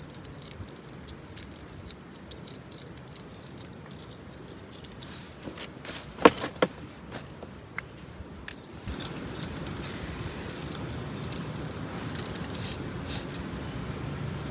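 Small clinks and rattles of objects being handled, with one sharper knock about six seconds in. From about nine seconds a steady hiss comes up underneath.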